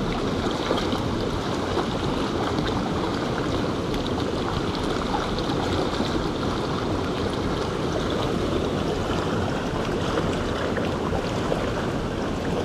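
Mountain river flowing, a steady rush of water.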